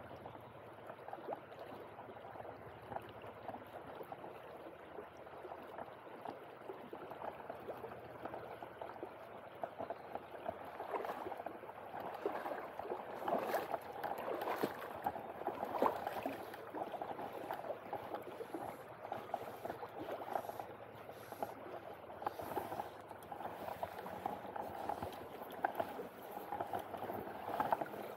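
Shallow river running over a stony riffle: a steady rush of flowing water with many small splashes, a little louder partway through.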